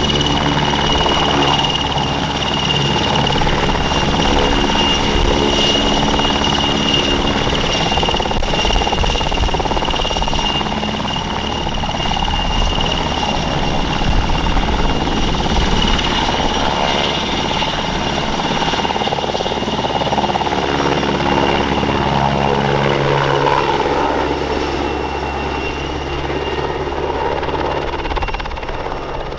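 PZL W-3 Sokol helicopter's twin turboshaft engines and main rotor running at take-off power as it lifts off and climbs away: a steady high turbine whine over the rotor noise. The sound eases a little near the end as the helicopter moves off.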